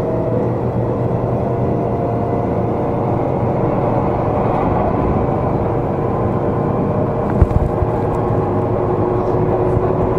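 Seibu 20000 series electric train heard from on board while running, with steady wheel and rail rumble and a faint steady motor whine. A single sharp knock comes about seven seconds in.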